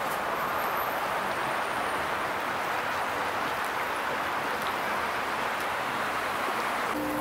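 Steady wash of city street traffic noise, tyres and engines of passing cars. Near the end it changes abruptly to a steady low hum.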